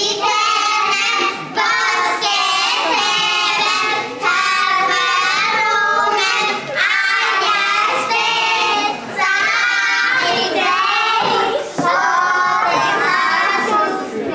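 A group of young children singing a song together, in phrases of about two and a half seconds with short breaks between them.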